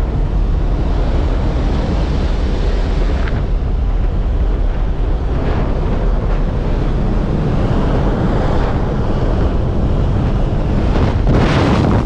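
Steady rush of wind and aircraft engine noise inside a skydiving jump plane with the door open, buffeting the microphone. Near the end the wind grows louder and fuller as the jumpers exit into freefall.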